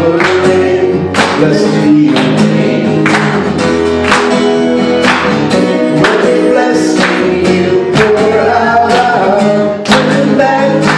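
Live worship song: a steel-string acoustic guitar strummed in a steady rhythm, with a man and a woman singing together.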